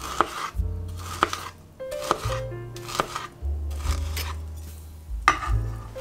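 Kitchen knife slicing a peeled pear on a plastic cutting board, the blade knocking the board in several sharp strokes, over background music.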